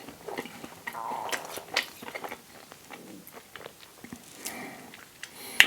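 Close-miked chewing and biting of a soft toasted English-muffin sandwich with vegan sausage and cheese: wet mouth sounds and scattered soft clicks, with one sharp click near the end.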